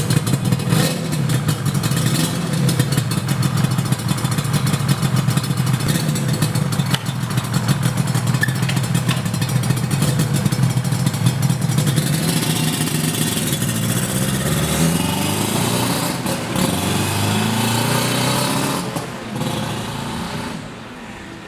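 Yamaha R1-Z 250's two-stroke parallel-twin engine running with a fast crackle, revved up and down several times in the second half.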